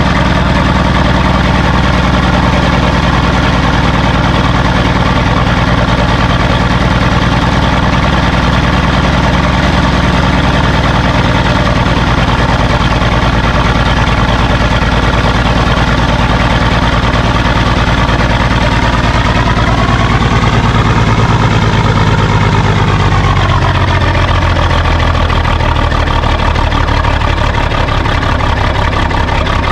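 855 Cummins inline-six diesel engine running steadily and loud, revving up once about twenty seconds in and dropping back down a few seconds later.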